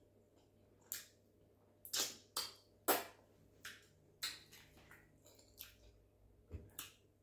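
Close-miked eating sounds of a soupy meal eaten by hand: a string of short, wet smacks and squelches from the mouth and fingers, about eight in all, the loudest about three seconds in.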